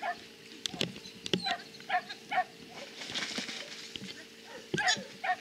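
Border collie barking in short, repeated yelps, about one to two a second, with a steady hum underneath.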